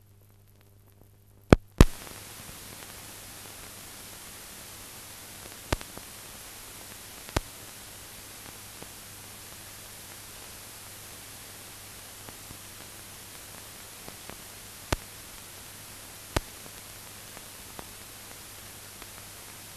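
Surface noise of an old newsreel film soundtrack, with no other sound on it. It is a steady hiss with a faint low hum and occasional sharp pops. It starts with two loud clicks about a second and a half in, and after that single pops come every few seconds.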